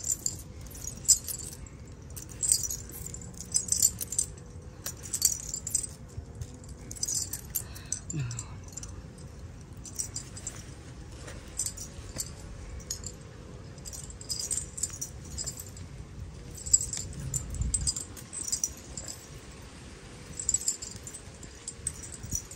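Small metal pieces jingling in short, irregular clusters, from something shaken in a woman's hands. A faint steady hum runs underneath.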